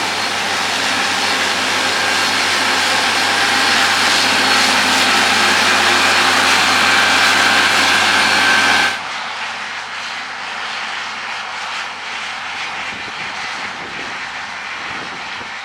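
Case IH AF10 combine harvester running steadily, a loud even rush with a thin steady whine. About nine seconds in it drops abruptly to a quieter level.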